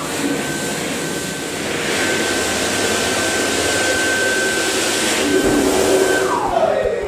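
A motor with a rush of air running at full speed, giving a steady high whine, then winding down with falling pitch near the end.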